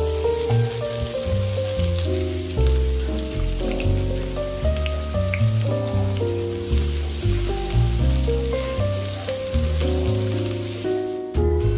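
Chopped onions frying in hot oil in a wok, a steady sizzling hiss that cuts off near the end, under louder background keyboard music.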